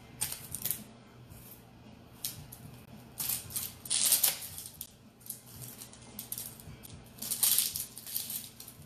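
Kitchen knife cutting and peeling a yellow onion on a wooden cutting board: a few crisp crackling bursts of dry onion skin and blade strokes, the longest about three to four and a half seconds in and another about seven and a half seconds in.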